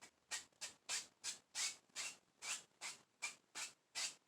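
Brush rubbing back and forth across an oil-painted canvas in quick, even strokes, about three a second, blending the sky.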